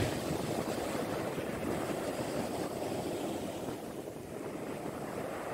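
Sea surf washing onto a beach, a steady wash of noise, with wind rumbling on the microphone.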